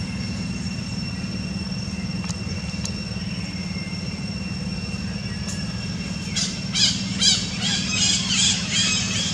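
A run of short, high-pitched chirping calls from a small animal or bird starting about six seconds in, about three a second, over a steady low hum and a faint steady high whine.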